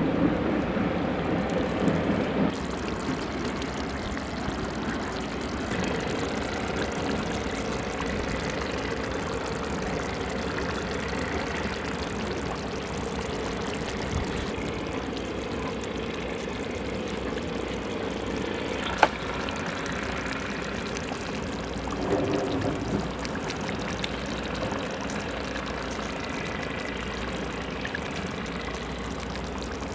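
Beef bone curry boiling in a metal pot over a wood fire: a steady bubbling hiss, a little louder in the first couple of seconds while a spoon stirs it, with one sharp click about nineteen seconds in.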